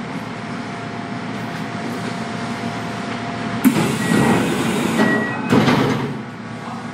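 Electric train's pneumatic sliding doors working at a station stop: a sudden loud hiss of air with two short high beeps, then a second burst of hiss and a knock about a second and a half later. Under it runs the steady hum of the standing train.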